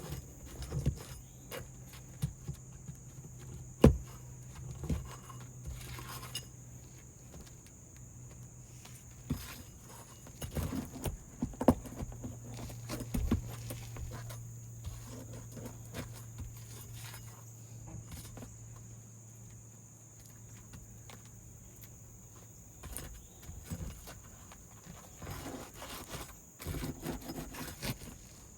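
Scattered taps, knocks and scrapes of hands and tools working roof shingles, with small rattles and footsteps; one sharp knock about four seconds in stands out as the loudest.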